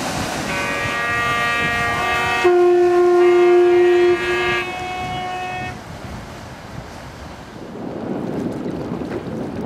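Several ship horns and whistles sounding together in long held tones at different pitches. A deep one is the loudest in the middle. They stop a little past halfway, leaving wind noise and the wash of water.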